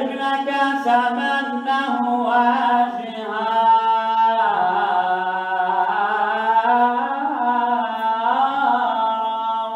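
Unaccompanied male voice singing one long, ornamented line of a Sufi samaa qasida, holding long notes that bend up and down in pitch.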